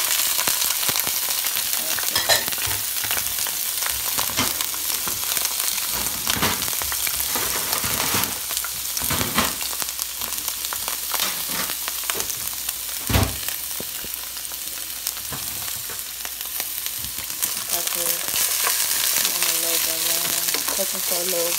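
Sliced red and green bell peppers sizzling in hot olive oil in a nonstick skillet. The sizzle is a steady hiss broken by frequent knocks and scrapes as the peppers are stirred, with one sharper knock a little past the middle.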